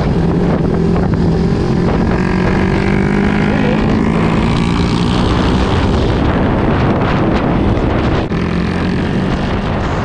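Yamaha Sniper 150's single-cylinder engine running steadily under way through an aftermarket racing exhaust, with wind buffeting the chin-mounted camera's microphone. The sound drops briefly and changes a little past eight seconds in.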